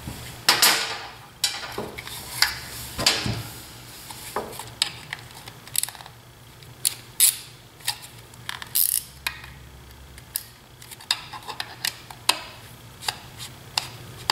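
Plastic housing of a battery soldering iron being handled and unscrewed with a screwdriver: irregular clicks and knocks of plastic and metal, with some scraping and rustling in the first few seconds.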